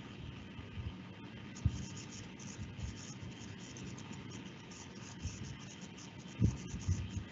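Faint steady hiss of an open microphone with a few soft low thumps and light scratching, the loudest thump about six and a half seconds in, typical of handling a desk or mouse.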